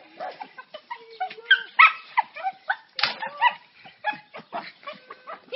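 A dog whining and yipping in a rapid string of short high calls, the excited greeting of a dog whose owner has come home; the loudest yelps come about two and three seconds in.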